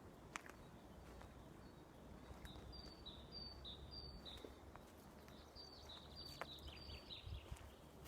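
Faint songbird singing: two phrases of about four repeated high two-note calls each, the second phrase starting a second or so after the first ends. A few light clicks sound under it.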